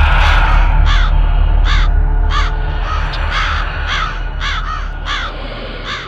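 Crow sound effect cawing over and over, about one caw every two-thirds of a second, above a loud deep rumbling drone that slowly fades toward the end.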